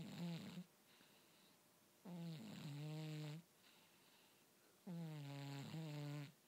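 Domestic cat snoring in its sleep with pitched, buzzing 'boo-boo' snores: one trails off just after the start, then two full snores come about three seconds apart, each dipping in pitch and then holding a steady low tone.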